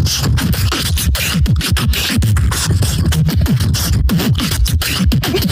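Solo beatboxing into a handheld microphone: a fast, unbroken stream of sharp percussive clicks and snares over a bass line of short sounds that slide down in pitch.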